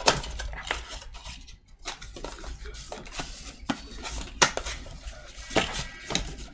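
Cardboard trading-card blaster box handled and its end flap pulled open by hand: scattered light taps and scrapes with a few sharp clicks.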